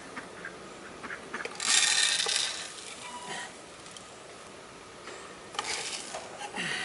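Leaves and twigs rustling, with scattered small clicks and knocks, as a wooden bird feeder is handled and hooked onto a tree branch. The loudest rustle comes about two seconds in, with shorter ones near the end.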